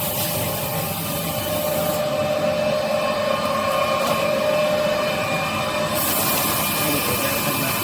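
Kitchen-towel band-saw cutting line running with a steady mechanical hum, and rushes of high hiss during the first two seconds and again about six seconds in.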